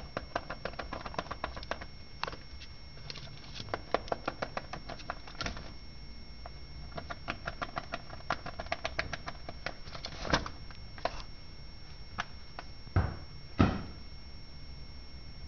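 A rabbit and a guinea pig gnawing at the paper pages of a book: quick runs of crisp chewing clicks with short pauses, then a few single, louder crunches near the end.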